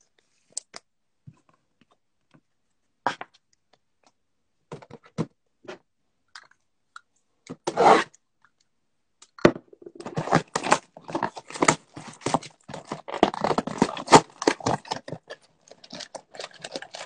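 A few scattered handling clicks, then a brief loud rustle of packaging about eight seconds in. From about nine and a half seconds on, several seconds of dense crackling and tearing follow as a Panini Select basketball Mega Box is ripped open by hand.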